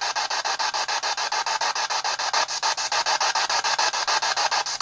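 P-SB7 Spirit Box radio sweeping rapidly through stations: a steady stutter of radio static chopped into short bursts about ten times a second.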